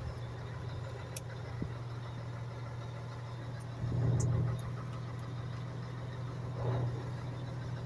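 Car engine running with a steady low hum, swelling louder twice, about four seconds in and again near the end.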